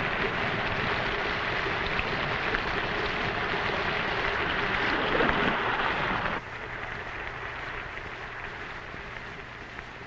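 Steady sizzling and crackling hiss of food frying, which cuts off suddenly about six seconds in. A fainter hiss with a low hum follows.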